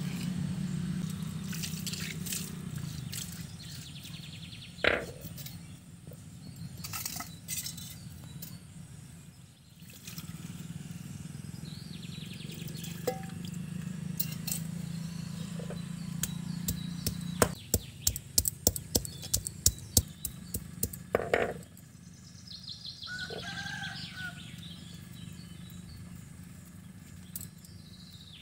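Hard stone-on-stone knocks as spices are crushed on a flat grinding stone: a few scattered knocks, then a quick run of about a dozen sharp knocks past the middle.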